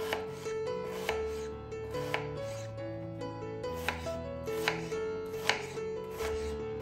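Kitchen knife cutting through an onion and knocking on a wooden cutting board, a sharp tap every half second to a second, the loudest about five and a half seconds in. Background music with held notes plays underneath.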